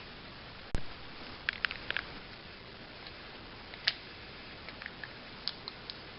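A few scattered light clicks and taps, as of small objects being handled, over a steady hiss, with one sharp click a little under a second in.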